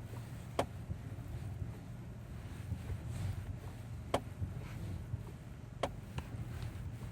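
Kia Ceed SW's steering knocking: a few sharp, irregularly spaced knocks over a steady low vehicle rumble. This is the unexplained knock in the steering that the owner is trying to trace.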